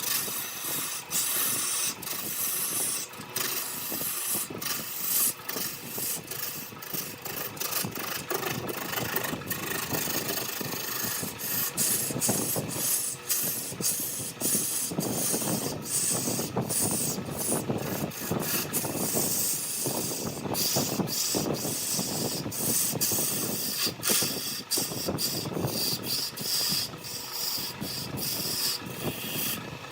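Wood lathe running while a turning tool works the spinning wood: a steady scraping hiss with many brief breaks.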